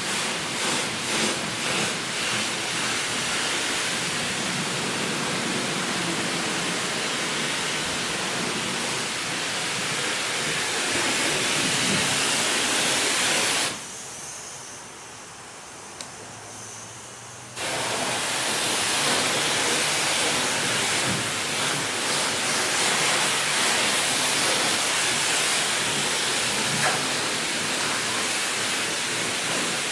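High-pressure water wand at a self-service car wash spraying a car, a steady hiss of water. Midway the spray stops for about four seconds, leaving a faint low hum and a click, then starts again.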